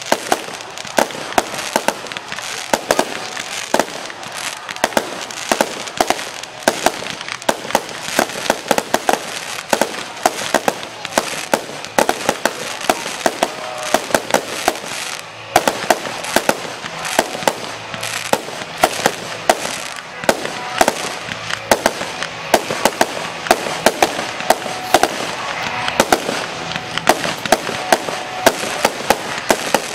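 Fireworks display: a rapid, unbroken run of loud bangs and crackling pops, several a second, from shells and multi-shot cakes bursting.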